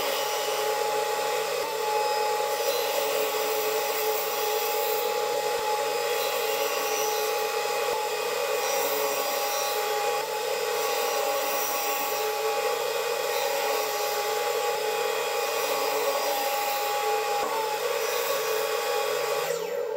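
Table saw running steadily with a constant motor whine as the spinning blade makes several short cuts through a thin hardwood cutting board, trimming its corners at angles; the whine wavers briefly a few times as the blade takes each cut.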